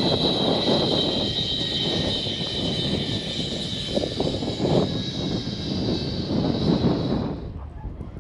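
Strong wind buffeting the microphone in gusts, over a steady high-pitched whine and hiss that cuts off near the end.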